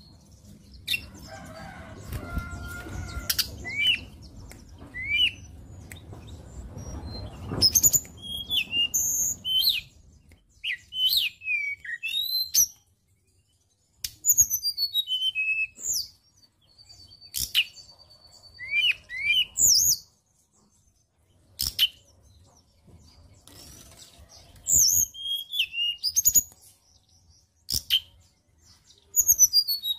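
Caged tledekan gunung (hill blue flycatcher) singing: bursts of very high, quick whistled notes, many sliding down in pitch, separated by short pauses. Through the first several seconds there is a low rustling and fluttering of the bird moving about the cage, with a few short chirps.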